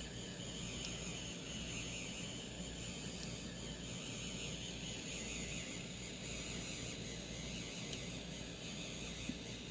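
Small feed motor of a 3D printing pen running steadily as it pushes PLA filament through the heated nozzle, a faint high whir with a low hum beneath.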